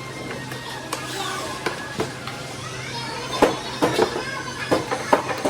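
Factory-floor sound: a steady low machine hum with irregular sharp clicks and knocks, louder and more frequent in the second half, as of parts being handled or struck.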